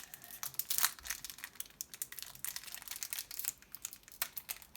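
Foil wrapper of a Pokémon card booster pack crinkling and tearing in the hands, a dense run of sharp crackles that is loudest about a second in.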